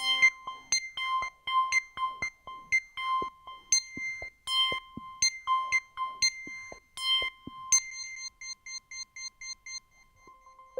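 Behringer DeepMind 12 synthesizer playing a preset as a bright, bell-like high note repeated about twice a second, each with a short decay, with short clicks in between. Near the end the note turns into a faster flutter of about five repeats a second that thins out.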